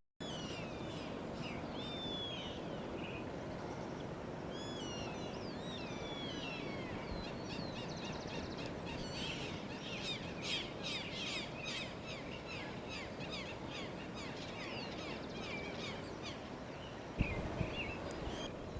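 Several small birds chirping and whistling in a chorus, with quick rising and falling calls that are busiest midway. A steady rushing noise runs underneath.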